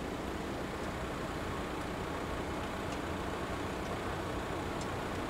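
Steady, even vehicle rumble, strongest in the low range.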